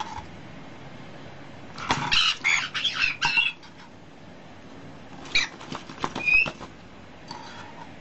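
Baby white-bellied caiques being spoon-fed from a steel cup: two clusters of short, scratchy bursts, one about two seconds in and another a little past five seconds, the second with a brief squeak, over a steady faint hiss.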